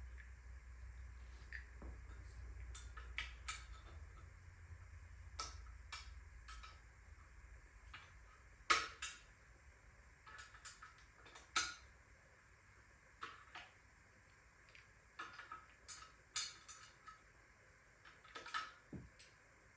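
Scattered metallic clinks and clicks of hand tools and bicycle parts being handled as a bike is taken apart, at irregular intervals.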